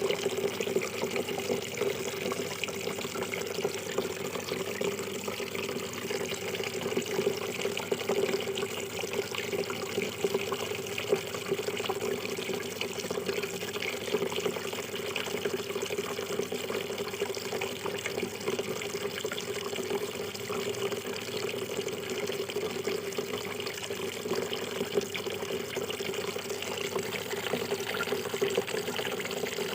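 Water splashing and trickling steadily down a small homemade styrofoam-and-cement tabletop waterfall, kept flowing by a small water filter pump.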